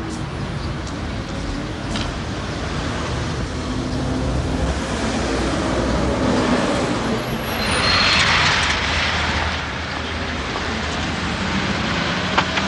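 Street traffic: car engines running at low speed, with a louder rush of noise about eight seconds in as a vehicle passes close.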